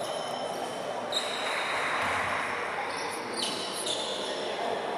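Basketball game play in a large sports hall: a ball being dribbled on the court, with short high squeaks around 4 kHz at intervals.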